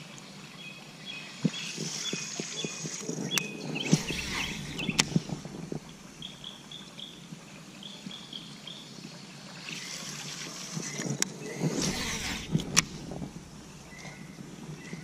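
Outdoor ambience on the water with small birds chirping in short repeated notes, scattered sharp clicks and knocks, and two spells of low rumbling noise, one about four seconds in and one near the end.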